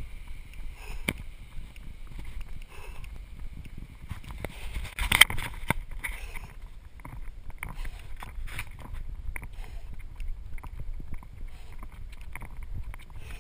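A runner's footfalls and breathing, with wind rumbling on the microphone of a handheld camera carried while running. Irregular knocks come from the camera jostling, and there is a louder gust or bump about five seconds in.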